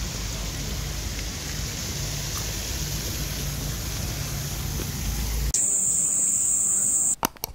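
Outdoor night ambience: a steady low rumble and hiss, then after a cut about five and a half seconds in, a steady high-pitched chirring of night insects, which stops abruptly near the end.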